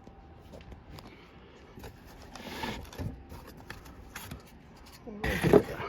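Cardboard packing pieces being pulled and scraped out of a box, with scattered knocks and a louder scrape near the end.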